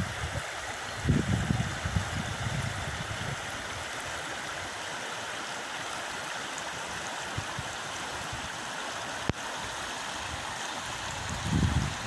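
Shallow river running fast over stones and a riffle, a steady rushing hiss. Wind buffets the microphone with a low rumble about a second in and again near the end.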